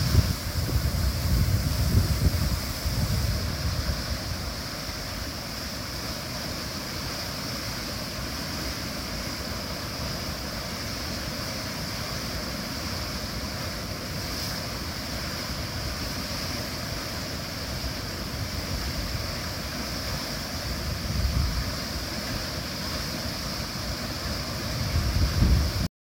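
River rapids rushing steadily through a narrow rock gorge, with wind buffeting the microphone in gusts over the first few seconds, once around two-thirds through and again just before the sound cuts off.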